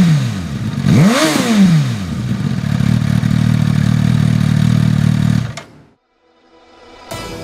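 Suzuki Katana's inline-four motorcycle engine given a quick throttle blip about a second in, the revs rising and falling back to a steady idle, then the engine sound cuts off after about five and a half seconds. Guitar music starts near the end.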